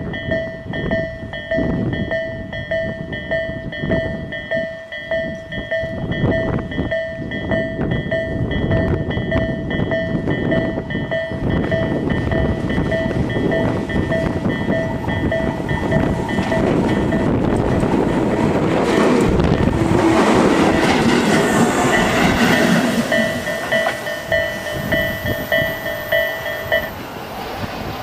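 A Japanese railway level-crossing alarm rings its electronic bell at a slow, even tempo while a two-car Tobu 8000 series electric train runs over the crossing. The train's wheels and running gear are loudest about two-thirds of the way through. The bell stops near the end.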